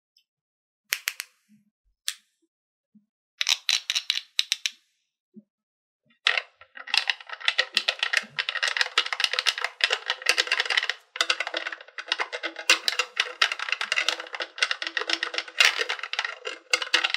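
A few sharp plastic clicks and rattles as a small plastic toy medicine bottle is handled. About six seconds in, a plastic toy toothbrush starts scrubbing rapidly back and forth over the plastic teeth of a toy bunny dental playset: a continuous scratchy brushing that runs to the end.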